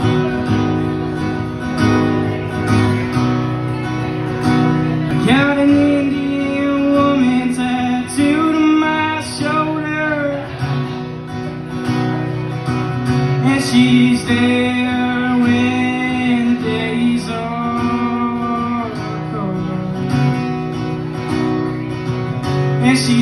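Acoustic guitar played solo and live, strummed and picked as the instrumental opening of a song.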